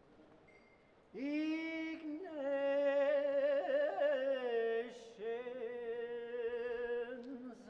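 A single voice singing a slow, chant-like incantation of Latin species names, holding long notes with a wavering pitch. It comes in about a second in, breaks briefly about five seconds in, and stops near the end.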